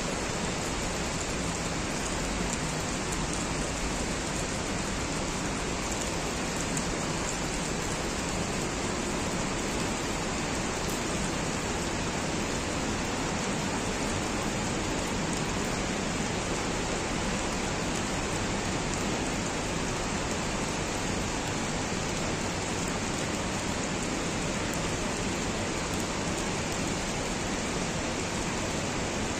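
Steady rain falling, an even hiss with no breaks or changes.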